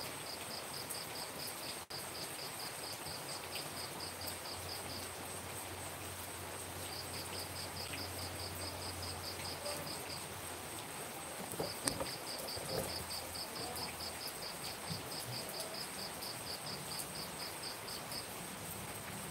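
Steady rain falling at night, with a cricket chirping in long trains of quick, evenly spaced pulses that stop twice and start again. A thin, steady high tone runs behind them.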